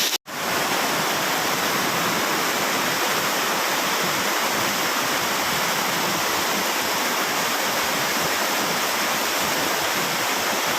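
Steady roar of a waterfall, the rush of falling water filling the sound, with a brief break from a cut just after the start.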